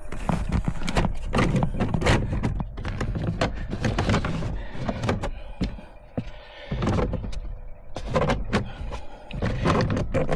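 Plastic dashboard trim panels being worked loose by hand and with a screwdriver: a run of clicks, knocks and rattles with rustling between them.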